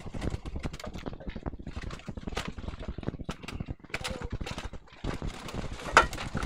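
Barbary doves moving about in a cage: dense, irregular taps and clicks, with one louder click about six seconds in.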